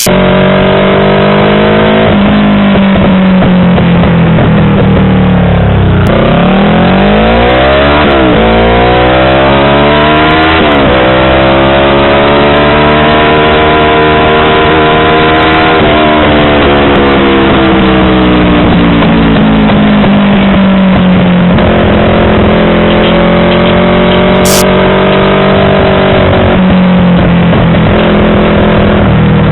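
Yamaha R25's parallel-twin engine through a WRX aftermarket exhaust, running loud with the revs rising and falling: a dip and quick climb about six to eight seconds in, another quick rise near eleven seconds, then slower swells up and down.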